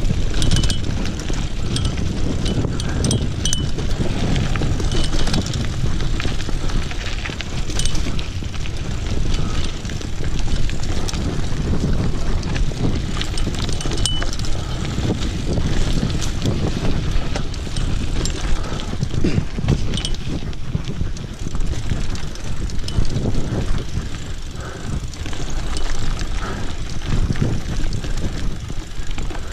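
Mountain bike descending a rocky dirt trail at speed: a continuous rumble of tyres over stones and loose dirt, with frequent clicks and rattles from the bike jolting over the rough ground, and wind buffeting the microphone.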